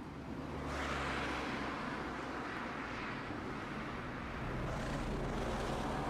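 Street traffic: vehicles passing with a low engine hum, swelling louder about a second in and again near the end.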